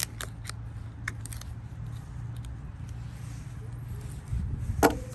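A few sharp clicks and taps from a plastic seasoning shaker and a pocket knife being handled as the shaker is opened. The sharpest click comes right at the start and another comes near the end, over a steady low hum.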